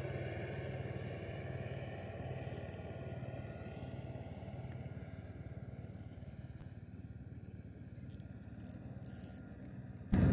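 Steady engine drone with an even low hum that slowly fades, typical of a motorboat running at a distance over open water. A few faint clicks come near the end.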